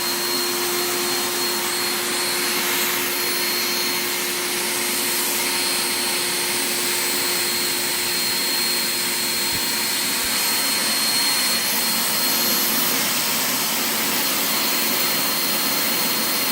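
Electric blower motor running steadily with a constant hum and high whine, blowing air over a carpet repair to dry the seam glue fast.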